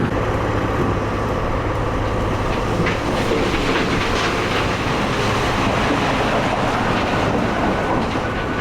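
A loud, steady rumbling clatter, like a machine or vehicle running.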